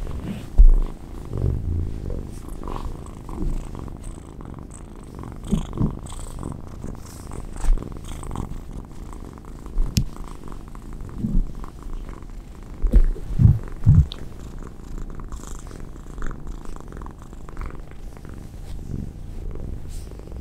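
Munchkin kitten purring steadily and contentedly, a low pulsing rumble close to the microphone, with a few louder low bumps along the way.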